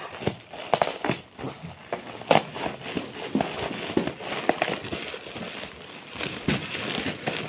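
Metallic foil gift wrap crinkling and crackling as it is handled and pulled open by hand, in many short irregular crackles.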